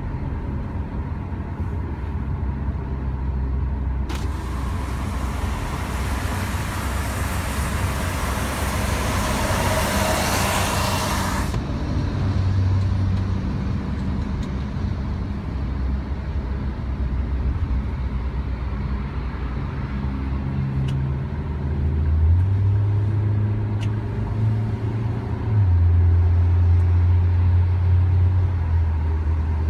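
Road and engine noise inside the cabin of a moving 2018 Toyota All New Rush, heard from the rearmost passenger row: a steady low rumble. A loud rushing hiss comes in about four seconds in and cuts off sharply some seven seconds later. In the last third a low drone grows louder in two steps.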